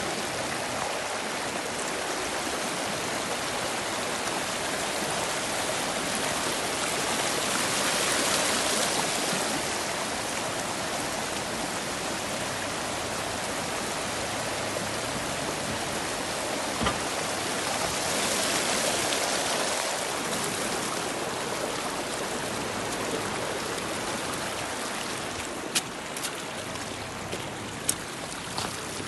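Muddy floodwater from heavy rain rushing and churning over rocks down a stony desert channel: a steady, full rush that swells louder twice. A few sharp clicks come near the end.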